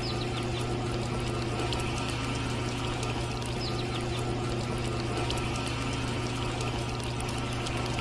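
Small electric motor of a miniature DIY concrete mixer running steadily with a low hum, its turning drum churning wet cement mix with a sloshing sound and many small clicks.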